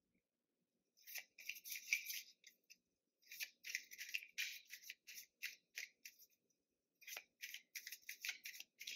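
A deck of tarot cards being shuffled by hand: quick runs of short rustling swishes with a few sharp clicks, in three spells with brief pauses between them.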